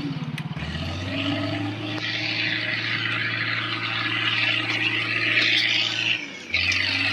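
Small single-cylinder motorcycle engine running under load, straining as the bike labours through deep mud. Its note dips and wavers, and drops away briefly about six seconds in before picking up again.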